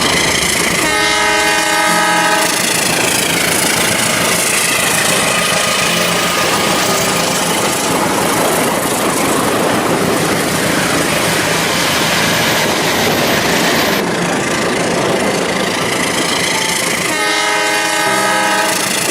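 Train passing with a steady rushing rumble, its horn blown twice, about a second and a half each: once just after the start and again near the end.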